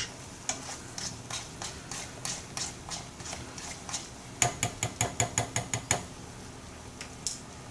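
Plastic fork stirring a thick peach sauce in a frying pan, clicking and scraping against the pan. A quicker run of sharper taps comes about four and a half seconds in and lasts about a second and a half.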